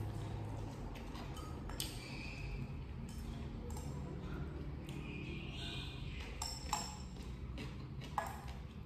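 Chopsticks clinking against a ceramic bowl while eating noodles: several light clicks and pings, the sharpest about two-thirds of the way through, over a steady low hum.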